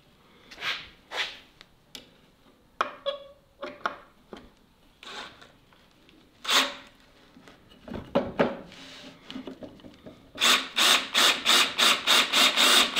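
Oak boards and screws being handled, with scattered knocks and scrapes. From about ten seconds in, a power drill drives a screw into the oak ladder side, giving a loud, rapid run of regular pulses.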